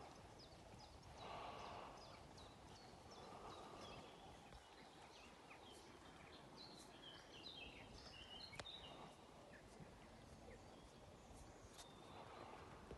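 Faint birdsong, many short chirps and calls, thickest in the middle, with the soft, muffled hoofbeats of a horse cantering on a sand arena.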